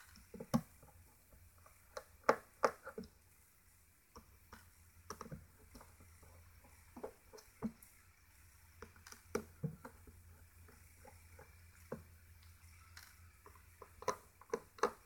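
A small screwdriver taking the tiny screws out of an LG Optimus G Pro's back frame, with irregular light clicks and taps of the driver, the screws and fingers on the phone frame and desk. The sharpest clicks come in small clusters, about two and a half seconds in and again near the end.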